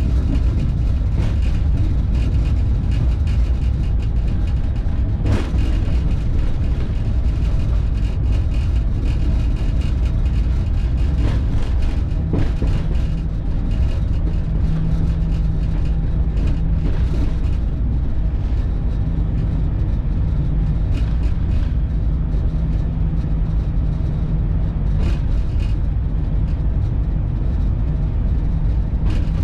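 Running noise inside a locomotive cab on the move: a steady, heavy low rumble from the locomotive and its wheels on the track, with a few sharp knocks scattered through it.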